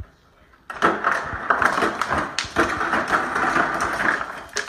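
Refrigerator door dispenser running as a dog presses its paddle with paw and muzzle. It is a steady rushing noise with a few sharp clicks, starting about a second in and easing off near the end.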